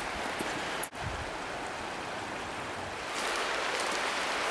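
Steady rushing of a river, with a brief break about a second in; the rush grows louder and brighter from about three seconds in.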